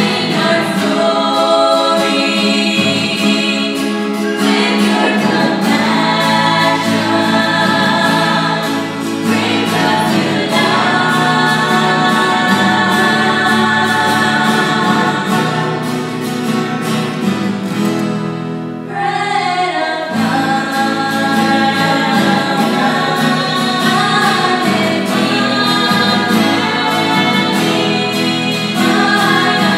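A trio of women singing a worship song together, amplified through microphones, with two acoustic guitars playing along. The singing pauses briefly between phrases about two-thirds of the way through, then carries on.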